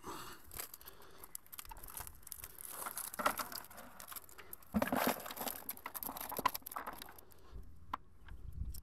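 Mesh keepnet being handled and pulled about, its netting rustling and scraping with many small clicks and several louder rustles.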